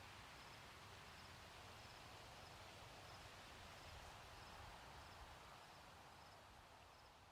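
Near silence: faint outdoor ambience, a soft hiss with a faint high chirp repeating about every half second, fading down near the end.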